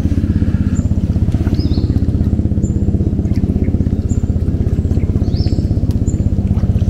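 Small boat engine running steadily at an even speed, with a fast, regular firing pulse.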